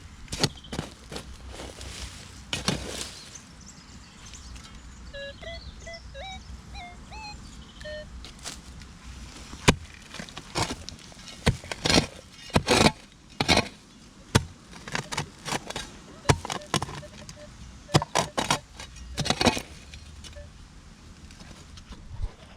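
A digging tool striking and chopping into soil, a run of sharp hits, busiest in the second half, as a metal-detecting target is dug out. A bird chirps a few short rising notes about five to eight seconds in.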